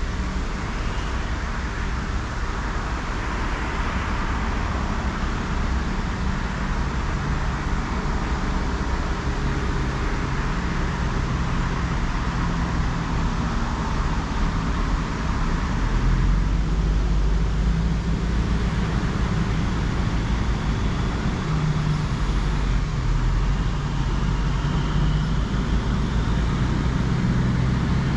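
Highway traffic: tyre hiss swelling and fading as several vehicles pass, with a low engine drone that grows louder about halfway through.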